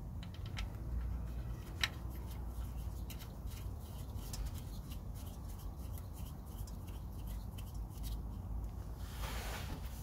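Small scattered clicks and scrapes of a reverse light switch being screwed by hand into a Nissan Micra K12 gearbox housing and its plastic wiring plug being pushed on, with a sharper click about two seconds in and a short scraping hiss near the end.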